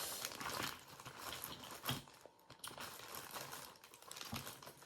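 Crab leg shells cracking and crackling as they are broken open and picked apart by hand: irregular small clicks and snaps.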